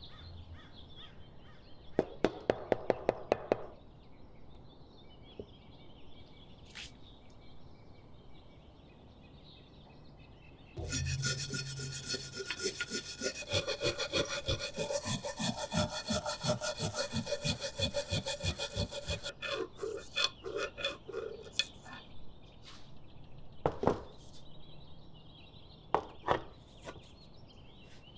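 A hand tool worked back and forth against a steel machete blade in rhythmic strokes, with a steady high ring over the strokes. A quick run of sharp clicks comes a couple of seconds in, and scattered single knocks follow the strokes.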